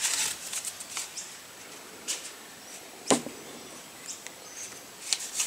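Handling noise from cardboard playing-card boxes being picked up and moved: a brief rustle at the start, then scattered light clicks and taps. About three seconds in there is one duller knock.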